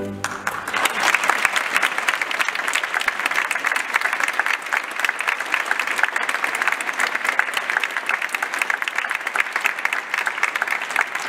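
Audience applauding: dense, steady clapping that sets in as the orchestra's music stops.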